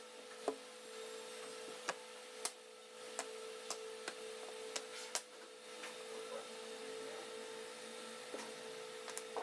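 Scattered light clicks and taps of plywood birdhouse parts being handled and fitted together, irregular and a second or so apart, over a steady hum.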